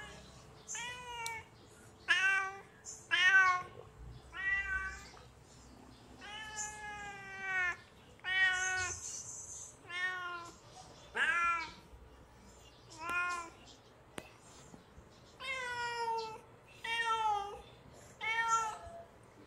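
Kitten meowing over and over, about a dozen calls a second or two apart, each falling in pitch, with one longer call near the middle. The calls are those of a hungry kitten calling out.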